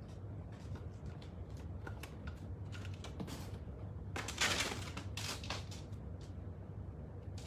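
Rabbits moving about a playpen: scattered light taps and scrabbles of paws and claws on foam mats and wooden hideouts, with a louder rustling scuffle about four and a half seconds in, over a steady low room hum.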